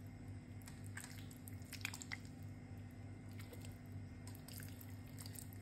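Faint soft squishes and small clicks of raw chicken breasts being laid by hand into a stainless steel pot of egg-and-starch marinade, over a low steady hum.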